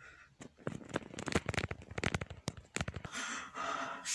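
A dense run of irregular crackling clicks for about two and a half seconds, then a steady hiss.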